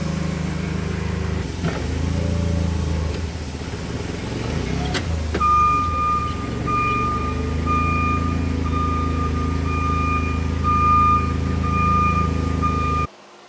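Forklift engine running, joined about five seconds in by a steady repeating electronic beep like a reversing alarm; both cut off sharply near the end.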